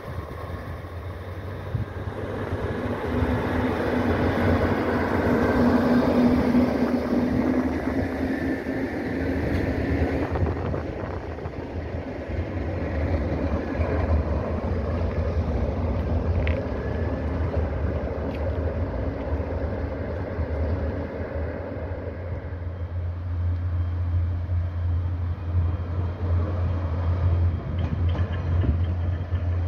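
Schneebergbahn "Salamander" diesel rack railcar running along the cog railway past the listener, its engine and running gear giving a steady low rumble. The engine note swells as it comes closest, and the low rumble builds again near the end as a train approaches on the rack track.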